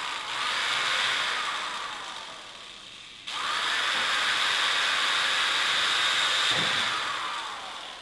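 Corded electric drill running at speed in two long trigger pulls while fitting a case fan to a TV's sheet-metal back panel. The first run eases off over about three seconds; the second starts suddenly about three seconds in and winds down with a falling whine near the end.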